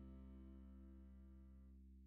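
The last chord of the background music ringing out, faint and slowly fading.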